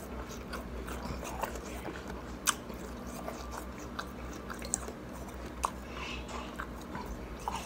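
A person biting into and chewing a cube of shaved ice: a run of crunches, the loudest about two and a half seconds in.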